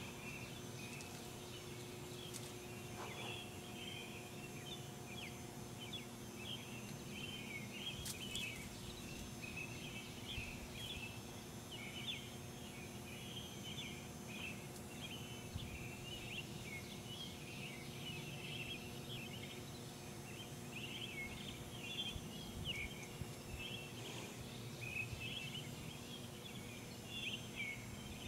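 Many small birds chirping in a dense, unbroken chorus of short high calls, over a low steady hum.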